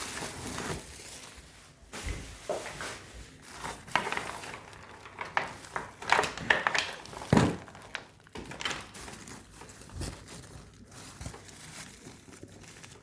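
Plastic rubbish bags and packaging rustling and crinkling in irregular bursts as they are dragged and shifted by hand, with a few dull knocks.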